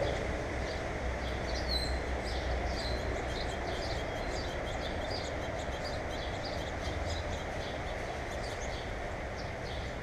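Steady outdoor background rumble, with small birds giving short high chirps scattered throughout, one a brief rising whistle about two seconds in.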